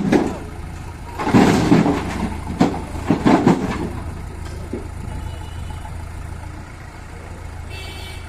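Heavy diesel engine of earthmoving machinery running steadily. Several loud noisy bursts come in the first four seconds, as of material being dug or dumped, and then only the engine runs on.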